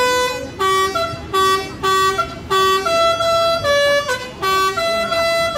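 Bus 'telolet' basuri multi-tone air horn playing a melody: a string of loud tooting notes that step up and down in pitch, some short and some held about half a second.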